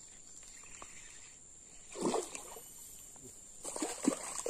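A hooked baung catfish splashing at the surface as it is played and reeled in, in two bouts: a short one about two seconds in and a longer, choppier one near the end. A steady high buzz of insects runs underneath.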